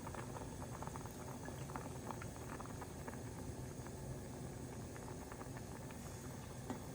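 Food bubbling as it cooks on the stove, a steady run of small pops and crackles.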